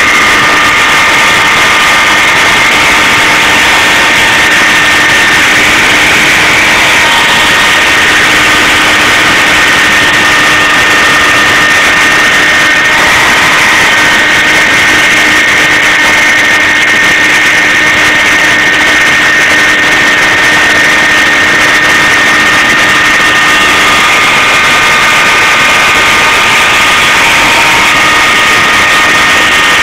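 CNC machine running continuously: a loud, steady mechanical whine made of several pitches over a hiss, with some of the tones shifting a few times as the machine changes speed.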